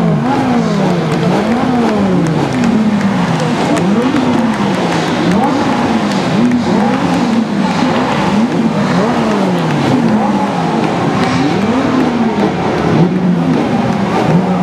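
Many supercar engines revving at once while standing still, their overlapping revs climbing and dropping again and again, about once a second, with no car pulling away.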